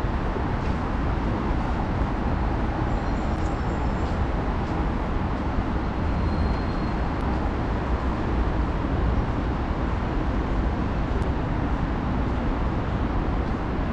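Steady urban traffic rumble, an even, continuous noise with no distinct events, heard from an open elevated platform.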